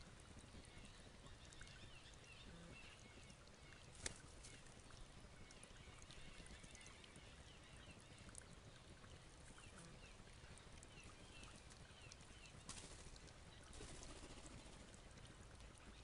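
Faint outdoor background with many small, short bird chirps scattered throughout, and a single sharp click about four seconds in.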